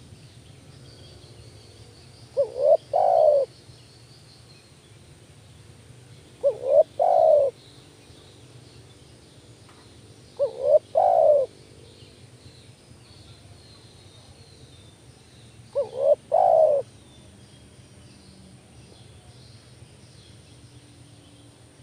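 Spotted dove cooing: four calls about four seconds apart, each two short notes followed by a longer final note. Faint high chirps of small birds sound in the background.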